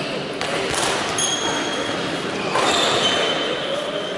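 Badminton play in a large hall: sharp racket hits on the shuttlecock and brief squeaks of shoes on the court floor, over steady hall noise.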